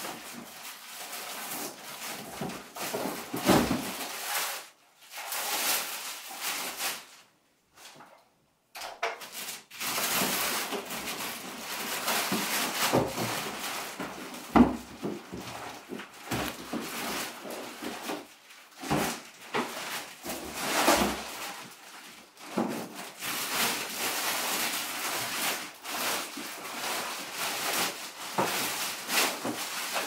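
Clear plastic packaging bags rustling and crinkling as a vacuum cleaner and its parts are unwrapped and pulled from a cardboard box, with occasional knocks as parts are handled and set down. It stops briefly about eight seconds in.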